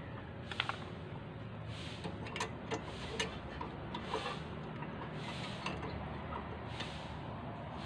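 Light metal clicks and rubbing as hands handle the front brake rotor and pads on the wheel hub, over a steady low background hum, with a soft hiss that comes back about once a second.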